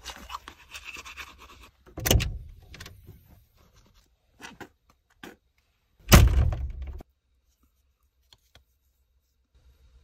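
Toothbrush scrubbing teeth for about two seconds, then two loud thunks about four seconds apart, the second the loudest, with a few small clicks between.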